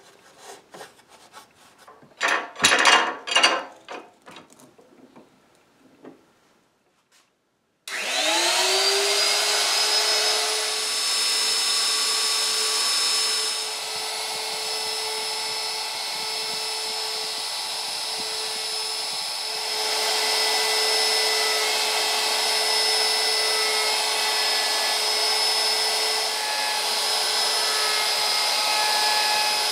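A few knocks and clatter of clamps and wood being handled, loudest about three seconds in. About eight seconds in a handheld wood router spins up with a rising whine and then runs steadily, cutting down the broken area of a jelutong table leg to a level surface.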